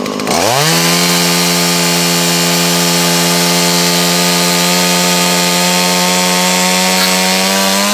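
Stihl MS180 two-stroke chainsaw brought up to full throttle about a third of a second in and sawing through a wooden board, its engine note holding steady under load. The revs climb slightly near the end, and the throttle is released right at the close.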